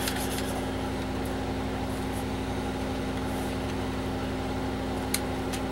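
Steady hum of a running 486 desktop computer with its case open, with one sharp click about five seconds in.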